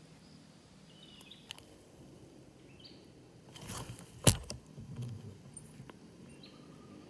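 Faint forest background broken about four seconds in by one sharp, short crack from the scoped hunting rifle being fired at a squirrel in the treetops.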